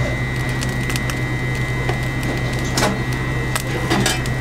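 Steady low electric hum with a thin high whine from the cooktop heating a frying pan of oil, with a few sharp clicks scattered through.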